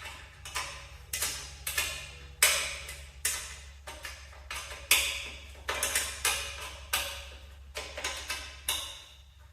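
Metal parts and tools being handled and set down: irregular sharp clinks and knocks, about two a second, each ringing briefly, over a steady low hum.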